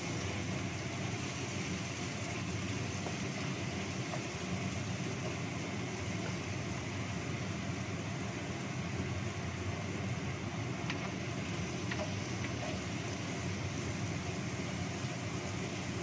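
Kitchen range hood extractor fan running with a steady, even noise, a bit noisy. A couple of faint taps sound near the end.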